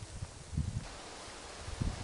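Footsteps and rustling on a forest trail: low, dull thuds about half a second in and again near the end, over a faint outdoor hiss.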